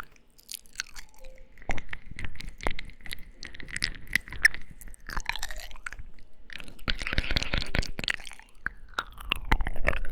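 ASMR mouth sounds: a rapid run of wet clicks, lip smacks and kissing sounds, thickening into a denser wet smacking about seven seconds in.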